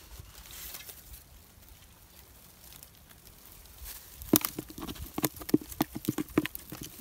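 Live fish thrashing in a plastic bucket: a quick, irregular run of sharp knocks and slaps against the bucket's sides starting about four seconds in, after faint rustling of dry leaves and stalks.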